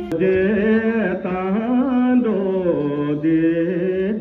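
A voice singing a slow, chant-like melody, holding long notes that bend up and down in pitch.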